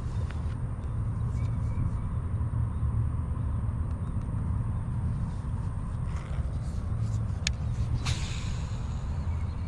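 Steady low wind rumble on the microphone, with a few sharp clicks and a brief swish near the end.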